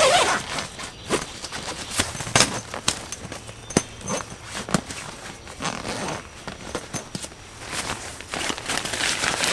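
Nylon fabric of a Snugpack Ionosphere one-person tent rustling and crinkling as it is handled, with scattered sharp clicks and the door zip being drawn open.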